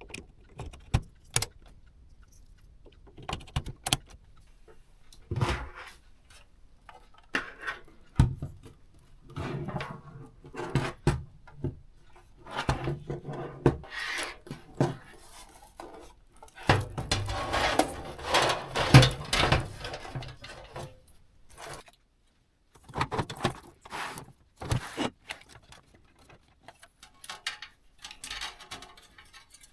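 Computer hardware being handled during a PC build: irregular small metallic clicks, taps and knocks, with a longer stretch of rustling and scraping about two-thirds of the way in.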